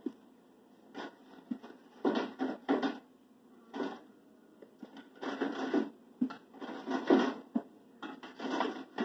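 Kitchen food-preparation noises: scraping, rubbing and light clatter of utensils and dishes on a counter, in short irregular bursts with quiet gaps between.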